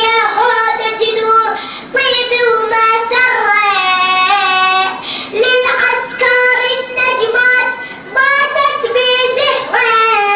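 A single high voice sings an Arabic devotional poem in the radood's chanting style. It holds long, ornamented lines with brief pauses between them.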